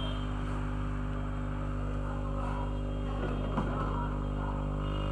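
Steady electrical mains hum, with a brief click about three and a half seconds in.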